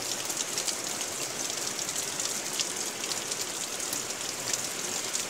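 Heavy downpour: a steady hiss of rain with many sharp ticks of drops striking close by.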